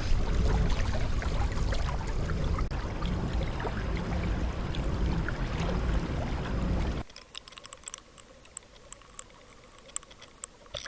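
Steady low rumble of water and wind noise on the kayak. About seven seconds in it cuts off abruptly to a much quieter stretch of small, sharp ticks and clicks.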